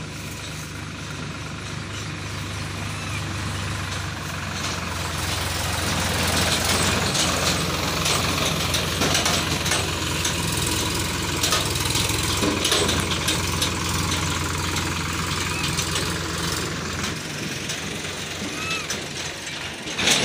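A motor engine running steadily with a low hum. It grows louder with a hiss over the middle of the stretch, then eases off a little.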